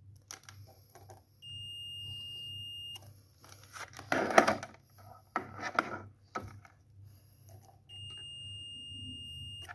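Digital multimeter's continuity buzzer giving two steady high-pitched beeps, the first about 1.5 s long and the second near the end, as the probes close a circuit through the copper sample: the sign that the metal conducts. Short noisy scrapes fall between the beeps.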